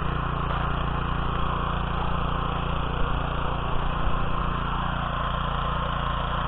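Small engine of a walk-behind tiller (motoblock) running steadily as it works a garden plot.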